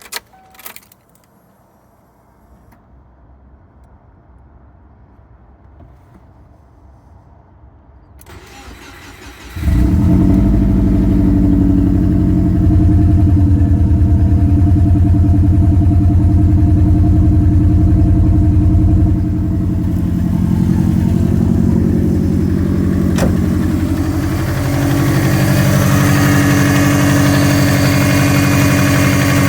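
Subaru Forester SF5's flat-four boxer engine cranking briefly and starting about ten seconds in, then running steadily, with its level shifting twice. This is the engine that the owner says is knocking.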